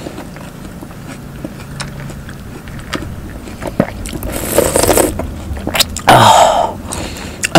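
A person slurping iced watermelon juice from a wooden spoon: two loud slurps, about four seconds in and again about six seconds in, after a few seconds of quiet mouth sounds.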